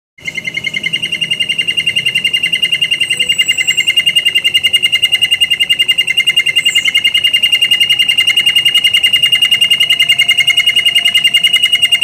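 Domestic canary singing a long rolling trill: one note repeated very fast and evenly, about fifteen times a second, held without a break, with a couple of brief high sliding notes over it.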